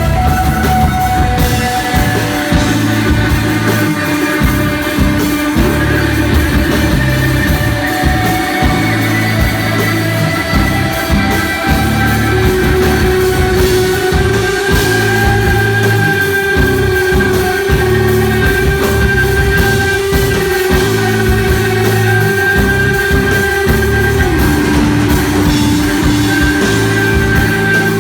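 Live rock band playing: electric guitar holding long, droning notes over bass guitar and a drum kit, in a spacey stoner/desert-rock style.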